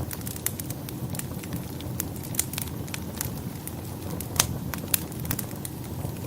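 Wood fire burning in a fireplace, crackling with frequent sharp pops over a steady low rumble of the flames, two louder pops near the end.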